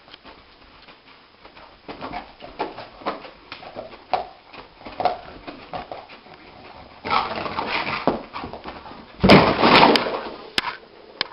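A dog whimpering and yelping in short, irregular bursts, loudest about nine seconds in.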